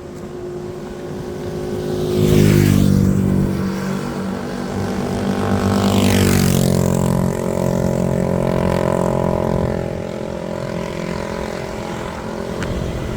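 Motor vehicles passing close by on a road: two loud pass-bys about two and a half and six seconds in, each swelling and fading, followed by an engine running steadily that eases off toward the end.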